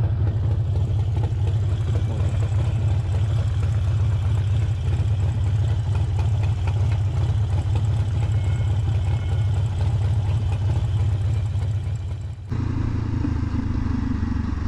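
Cruiser motorcycle engine running with a steady low rumble. About twelve seconds in, it cuts abruptly to a different motorcycle's engine with a higher, rougher note.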